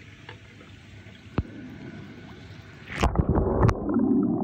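Water splashing and sloshing in a plastic tub as a hand moves through it. It is faint at first with a single click, then turns suddenly loud and choppy about three seconds in.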